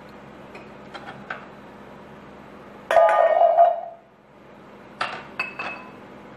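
Kitchenware clatter: amla (Indian gooseberries) tipped from a glass bowl into a steel pan, which rings loudly for almost a second about three seconds in. A few seconds later, near the end, the empty glass bowl is set down against other glass bowls with short high clinks.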